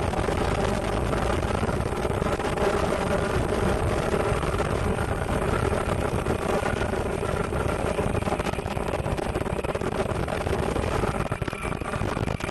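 Ultrasonic fabric-slitting machine running steadily, a continuous mechanical hum with several held tones.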